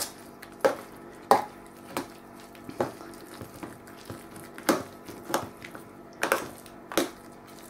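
A metal spoon stirring a thick, wet muesli-and-berry mixture in a metal baking tray. It knocks and scrapes against the tray irregularly, about once a second.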